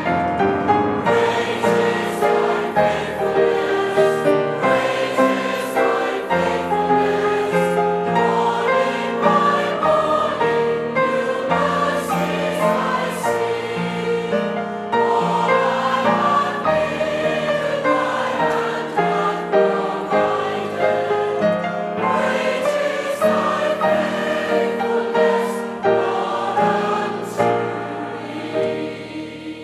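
A choir singing a hymn, the music dying away near the end.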